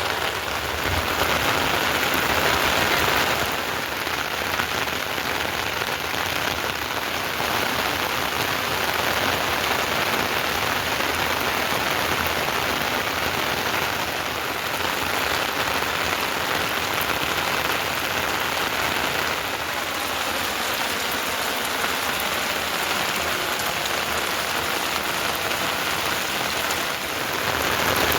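Heavy rain falling steadily, a dense, even hiss of drops on surfaces, swelling slightly a few times.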